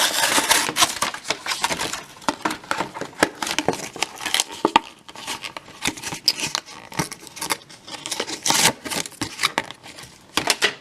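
Scissors cutting into a stiff plastic blister pack, with dense crackling and crinkling of the plastic as it is cut and pulled apart.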